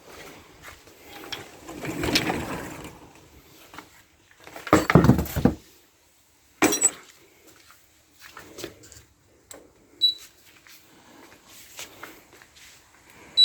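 Scattered clunks, scrapes and knocks of things being moved and set down, in separate bursts with short quiet gaps between them.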